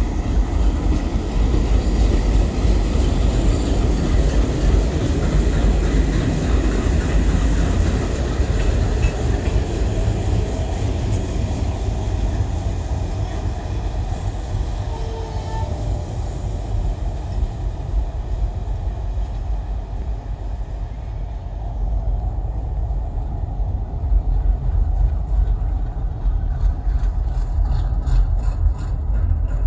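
Two coupled WDM3D diesel-electric locomotives, with ALCO 251 engines, running together at low speed. A continuous heavy engine rumble, with the steel wheels rolling over the track.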